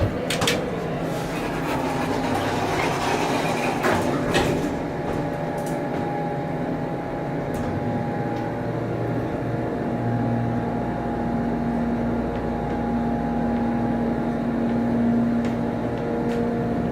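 Elevator doors shutting with several knocks in the first few seconds, then an Otis Series 1 elevator cab running with a steady hum and whine. A low tone in the hum grows stronger about ten seconds in.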